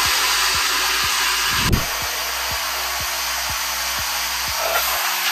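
Air Shammee electric car-wash air dryer running, blowing a steady rush of air out through its hose nozzle. A single sharp knock sounds about two seconds in.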